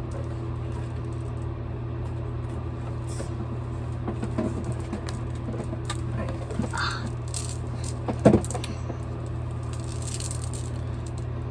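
Small fidget toys and trinkets rattling and clicking as they are rummaged through by hand, with one sharper knock about eight seconds in, over a steady low hum.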